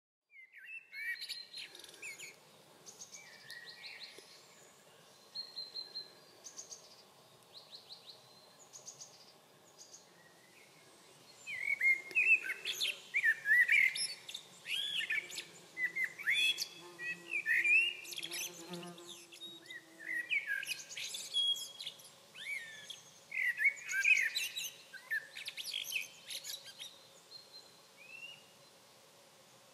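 Male Eurasian blackbird singing: a run of short fluting phrases, each ending in a higher twitter. The song is fainter for the first ten seconds or so and louder after that.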